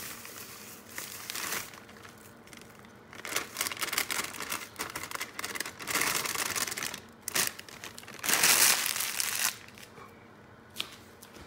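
Packaging of a box of Krusteaz cornbread mix being opened by hand: crinkling and tearing in several spells, the loudest and longest about three quarters of the way through.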